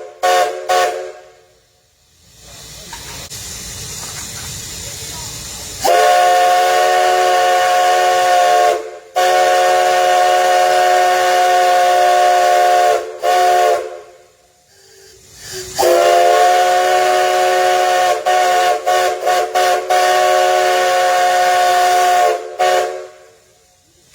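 Nickel Plate Road 587's steam locomotive whistle, a 2-8-2 Mikado's whistle, blows a chord of several tones in long blasts. One blast ends about a second in. Another runs from about six to thirteen seconds with a brief break, and a third from about sixteen to twenty-two seconds, stuttering with quick breaks near its end. Steam hisses in the gaps between blasts.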